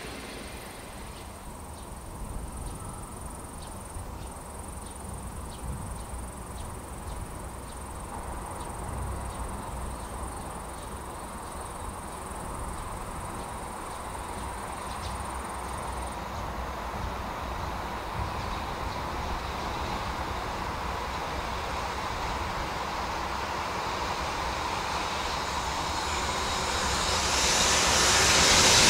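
JR Freight EH500 electric locomotive hauling a container freight train, approaching out of a tunnel: a steady rumble growing gradually louder, swelling sharply in the last couple of seconds as the locomotive draws near.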